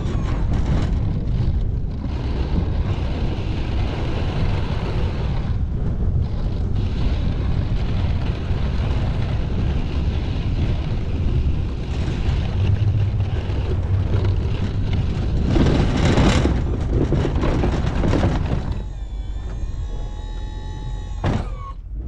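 Pickup truck running in reverse while a rear-facing Sno-Power plow blade pushes and scrapes a load of snow: a steady, dense rumble with a louder surge about two-thirds of the way through. Near the end a steady whine of several tones sets in, typical of the plow's electric-hydraulic pump as the blade is worked.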